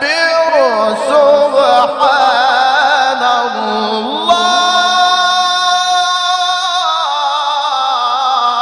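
A male Quran reciter's voice chanting in melodic tajweed style, drawing out long, ornamented notes with no instruments. About four seconds in he settles on a new note and holds it steady for a few seconds, then breaks into quick turns of pitch.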